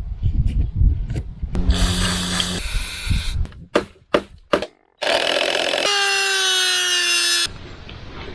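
A power tool running in short bursts: a brief run, a few sharp knocks, then a longer run whose pitch sinks slightly before it stops abruptly.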